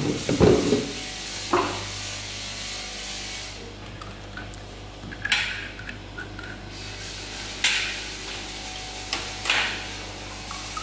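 Hollow knocks of empty plastic bottles being handled and set down in the first second or two, then a few short, sharp metal clinks and scrapes as the stainless nozzle brackets and clamp fittings of a liquid filling machine are loosened and moved, over a steady low hum.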